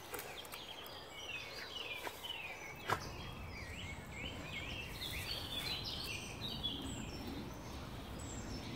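Songbird singing a rapid run of chirps and warbles over outdoor ambience, with one sharp click about three seconds in.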